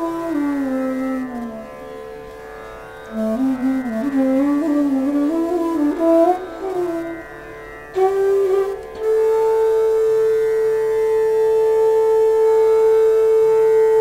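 Bansuri (D-base bamboo flute) playing Raag Megh Malhar over a steady drone. First a note slides downward, then comes a winding, ornamented phrase, and from about nine seconds in a long steady note is held.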